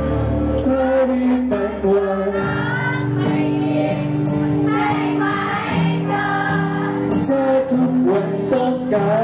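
Thai pop ballad performed live: singing over a backing track of sustained chords. The voices are heard through the hall's PA.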